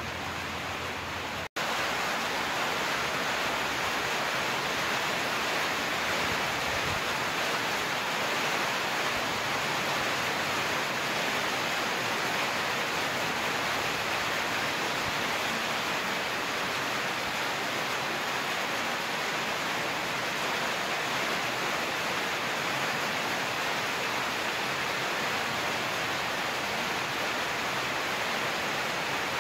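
Steady rain hiss: an even rushing noise with no separate drops or tones, cutting out for an instant about a second and a half in.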